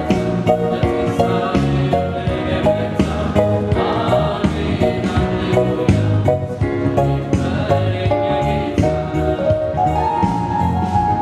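Yamaha electronic keyboard playing a church song over a steady beat, with voices singing along.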